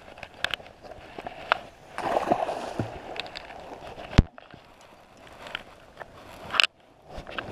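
Close handling noise: jacket fabric rustling and scraping against the body-worn microphone as he moves and crouches on the shore, with two sharp knocks, one about four seconds in and one near the end.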